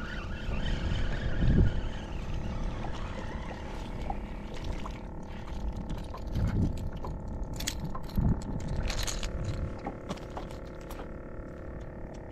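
A steady motor hum with wind buffeting the microphone, and scattered light clicks from the spinning reel and rod handling as a small fish is reeled in.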